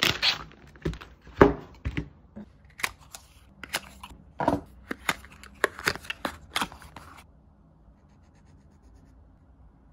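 Stationery being unpacked by hand: a paper wrapper rustling as a diary slides out, then a paper ink carton's flaps opened, with sharp taps and clicks as items are handled and set down. The handling stops about seven seconds in, leaving only the faint scratch of a fountain pen nib on the diary's paper.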